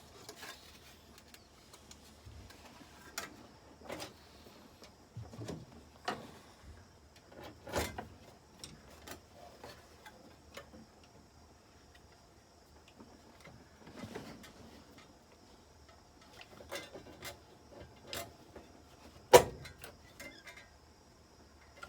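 Scattered small clicks and taps of hand work with metal parts and tools, coming at irregular intervals, with one much louder sharp click near the end.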